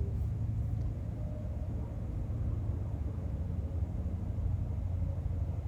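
A steady low hum or rumble of background noise, even throughout, with no speech or music.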